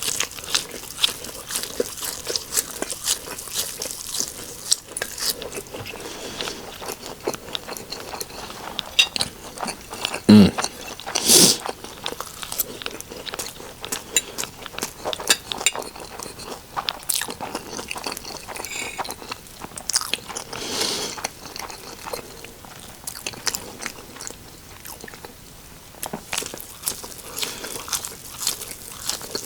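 Close-miked eating of eggs and air-fried buffalo cauliflower wings: steady biting and chewing with many small crunches and wet mouth clicks, and a couple of louder hits about ten to twelve seconds in.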